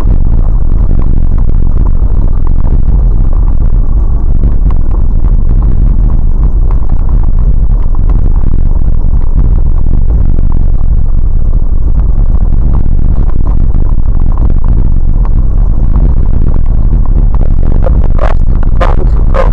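Vehicle driving slowly on a snowy dirt track, heard from a dashcam inside the cab: a loud, steady low rumble of engine and tyres. A few sharp clatters come near the end.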